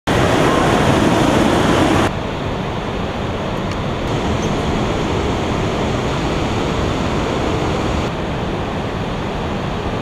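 Steady rush of falling water from a waterfall and a dam spillway. The sound changes abruptly to a quieter rush about two seconds in and shifts again near the end.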